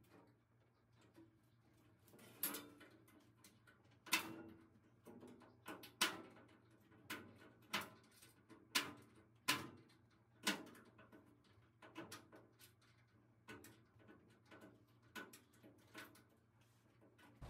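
Irregular clicks and light metallic taps from a flathead screwdriver and the light's retaining clip being worked onto the back of an out-of-service light set in the changer cabinet's stainless steel panel. The taps come singly every half second to a second, a few of them sharper than the rest.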